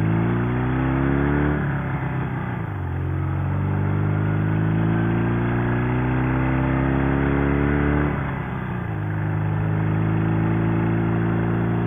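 Sidecar motorcycle engine accelerating hard from a stop: its pitch rises through the gears, dropping at two upshifts, about one and a half seconds in and again about eight seconds in, then climbing on.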